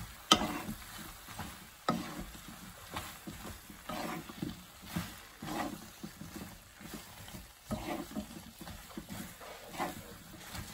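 Spatula scraping and knocking against a nonstick pan as squid and vegetables are stir-fried, in irregular strokes about one or two a second, with a sharp knock about a third of a second in.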